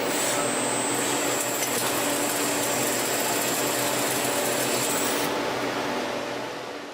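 CNC lathe running: a steady machine noise with a thin high whine and a low hum. The high whine and hiss drop away about five seconds in, and the sound then fades out near the end.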